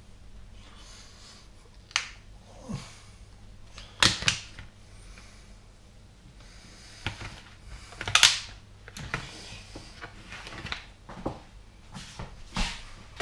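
Irregular light clicks and knocks of handling things at a kitchen hob, prawns going into a pan and a plastic tub being handled, about ten in all, over a low steady hum.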